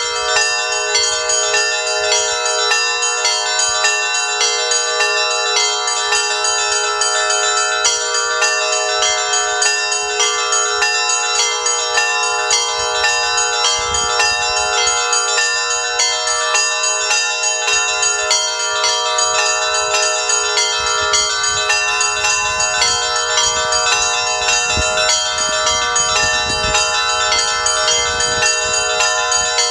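Russian Orthodox church bells ringing together in a fast, unbroken peal, several bells struck in quick repeated strokes over their sustained ringing tones. The sound comes from the higher and middle bells, with no deep bass bell.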